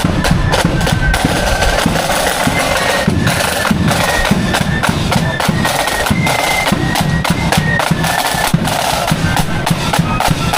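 Marching band playing a melody over dense drumming from snare and bass drums.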